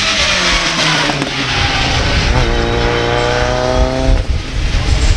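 Mitsubishi Lancer Evolution race car's turbocharged four-cylinder engine running hard as the car passes. About two and a half seconds in, the revs dip briefly, then climb steadily for about a second and a half.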